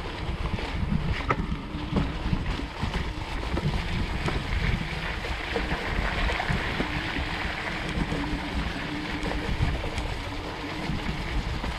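Wind buffeting the microphone over the rumble of a fat-tyre electric bike rolling along a soft, grassy trail, with frequent knocks and rattles as the bike jolts over bumps.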